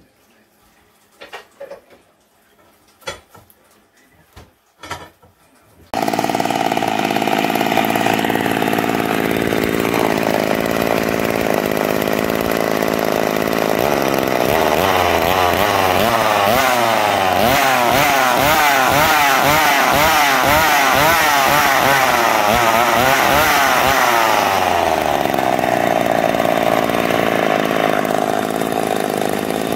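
A few light knocks, then a yellow McCulloch two-stroke chainsaw running loudly: idling steadily, revved up and down rapidly for about ten seconds, then settling back to idle.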